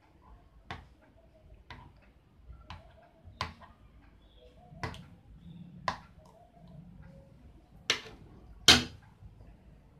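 A spoon clicking against the side of a container while a mixture is stirred: about eight sharp taps at uneven gaps, the last two loudest.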